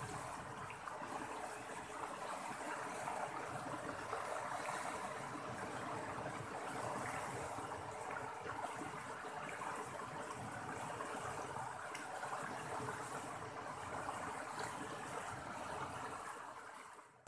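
Steady rush of a fast river current over rapids.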